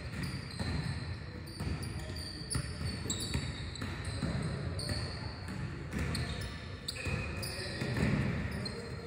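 Basketballs bouncing irregularly on a hardwood gym floor, with sneakers squeaking on the court.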